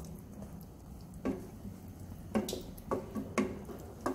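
Wooden spatula stirring a thick soya chunk gravy in a cooking pan, with several short knocks of the spatula against the pan in the second half.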